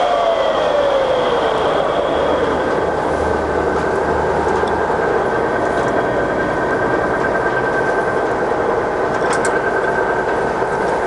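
Scott 6266 gap bed centre lathe running with its spindle in a middle speed, about 710 rpm: steady geared-headstock whine with a tone that falls in pitch over the first two seconds and then holds steady. A few faint clicks near the end.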